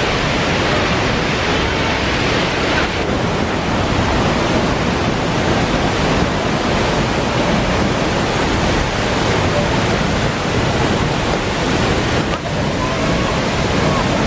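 Waterfall close by: a loud, steady rush of heavy falling water.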